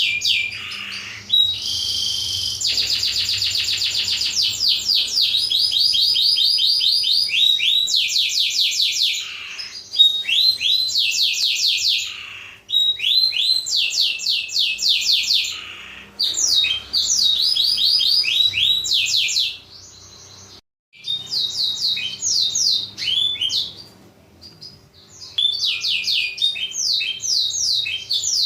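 Blackthroat (black-throated canary) song: long phrases of rapid trills and quick sweeping notes, with short pauses between phrases and a brief gap about twenty seconds in.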